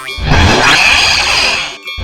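Cartoon soundtrack of music and loud noisy sound effects with a bell dinging. It starts just after the beginning and breaks off briefly near the end.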